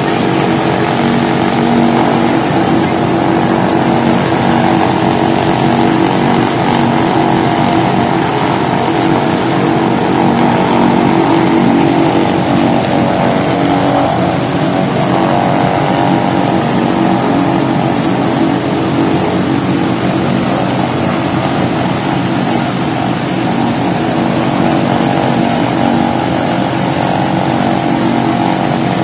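Douglas DC-3's Pratt & Whitney R-1830-90 fourteen-cylinder radial engines running steadily on a ground run, loud and even throughout.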